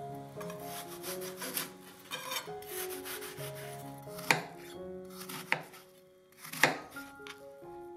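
A kitchen knife slicing through a peeled apple onto a cutting board: crisp cutting in the first half, then three sharp knocks of the blade on the board about a second apart. Soft background music plays underneath.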